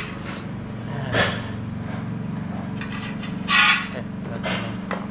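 Carburettor parts being handled and fitted by hand during reassembly: a few short scrapes and clicks, the loudest a little after the middle, over a steady low hum.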